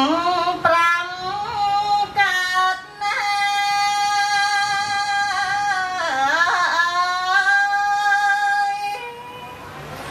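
A woman singing Khmer Buddhist smot, a solo chant. She holds long notes, with wavering ornaments and slides in pitch between them.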